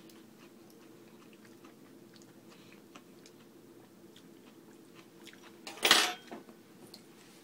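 Faint chewing and mouth sounds of someone tasting a dip, over a faint steady hum. About six seconds in, a sharp metallic clatter as a metal fork is set down on a laminate countertop, followed by a few small clicks.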